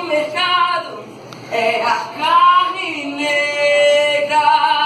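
Children's choir singing a melody in high voices, with a rising phrase about two seconds in and a long held note a little after three seconds.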